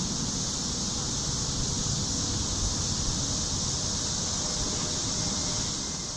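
Steady high-pitched chirring of a night insect chorus, over a low rumble of wind or distant traffic that fades near the end.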